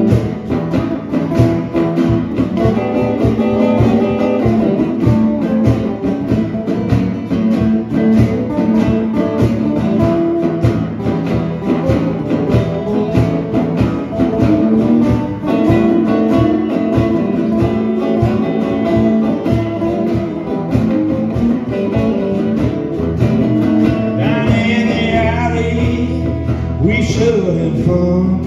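Hollow-body electric guitar played through an amplifier, an instrumental passage of strummed and picked notes in a steady rhythm. A man's singing voice comes in near the end.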